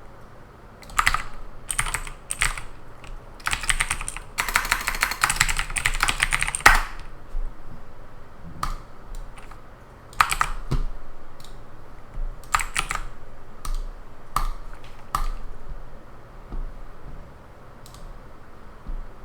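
Typing on a computer keyboard in bursts of key presses, with a fast, unbroken run of typing about four to seven seconds in. After that come scattered single clicks, spaced further apart and thinning out near the end.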